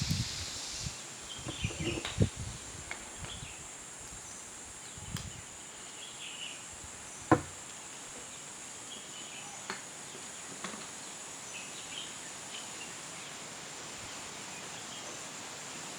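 Faint steady background hiss with a thin high whine, broken by a few soft bumps in the first couple of seconds and scattered clicks, the sharpest about seven seconds in.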